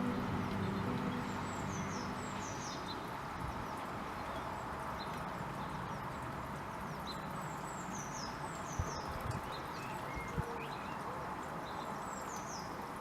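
Blue tit tapping on a wooden nest box, heard as a few scattered sharp knocks, with a small bird singing a short falling phrase three times over a steady background hiss.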